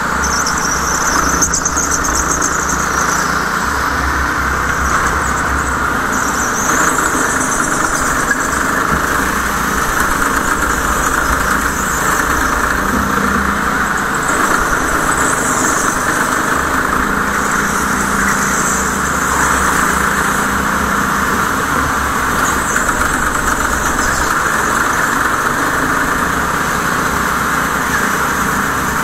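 A go-kart running on a race track, its engine sound and noise steady throughout, with high squeals coming and going several times.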